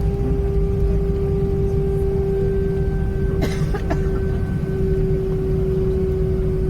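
Cabin noise of an Airbus A319 taxiing after landing: a steady low rumble with a steady hum above it. Two short clacks come just past the middle.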